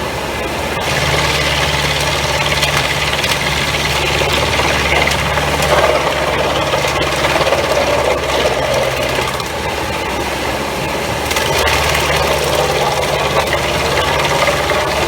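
New Holland tractor's diesel engine running steadily, driving a Pezzolato PTH 1000/1000 G drum wood chipper through its PTO. The engine's low hum strengthens about a second in and again near the end.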